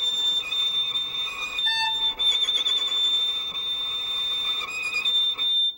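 A violin playing one very high note, held on a long bow stroke with vibrato in places, then stopping abruptly near the end. It is the rosin test: a note that keeps sounding shows the bow hair has enough rosin for the friction that makes the tone.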